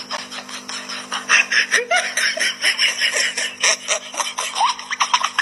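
People laughing and giggling over background music.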